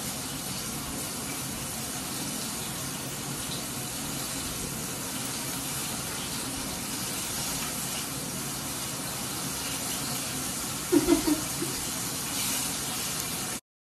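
Floured halloumi chips shallow-frying in hot vegetable oil in a frying pan: a steady sizzle, with a few short knocks of a spatula against the pan about eleven seconds in.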